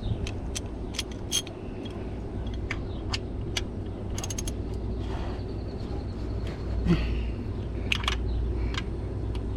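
Scattered sharp metal clicks and clinks from a hand tool working the oil drain plug loose under a Honda CR-V, some in quick clusters, over a steady low rumble.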